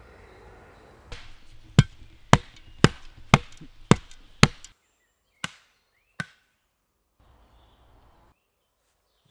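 A shovel blade chopping into packed forest soil: six sharp strikes about half a second apart, then two more, spaced further apart.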